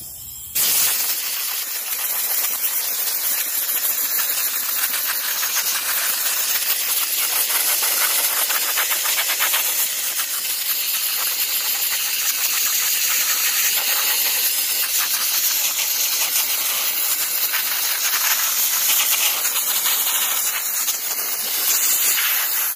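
Pressure-pot sandblaster nozzle blasting play sand onto a metal bench end: a loud, steady hiss of air and sand that starts about half a second in.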